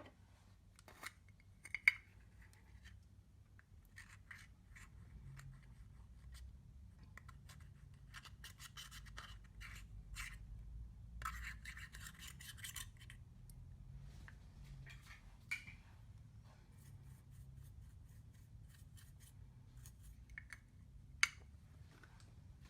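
Faint scraping and scratching with scattered sharp clicks and taps, from makeup being broken up and worked into clear slime. The longest scraping comes in the middle, and the sharpest clicks come about two seconds in and near the end.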